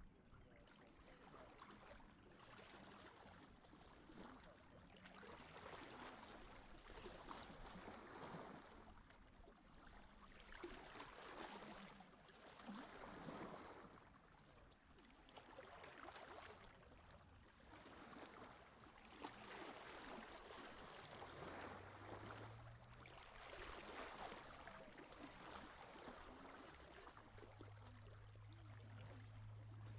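Faint sea waves washing in, swelling and falling back every two to three seconds. A low steady hum comes in briefly past the middle and again near the end.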